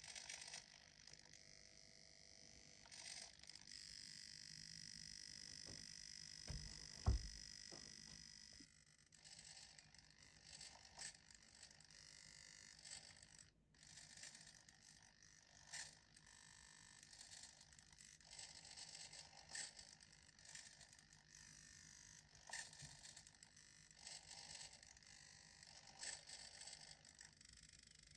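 Faint, quiet whine and soft irregular clicks from a small motor-driven mechanism, with a single low thump about seven seconds in.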